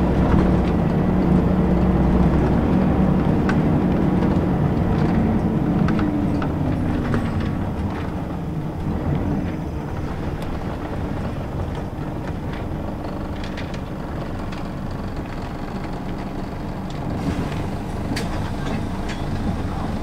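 Scania L94UB city bus with a ZF automatic gearbox heard from inside, its diesel engine pulling strongly at first, then the engine note falls in pitch about six seconds in as the revs drop. Quieter steady running and road noise follow, with a few light rattles from the bus interior.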